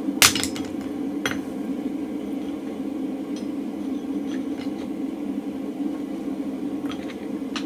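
A single sharp, ringing hammer blow on steel at the anvil, then a lighter metallic clink about a second later, as a punch is driven through red-hot mild steel bar. After that a steady low hum, with a few faint clinks near the end as the hot bar is shifted on the anvil.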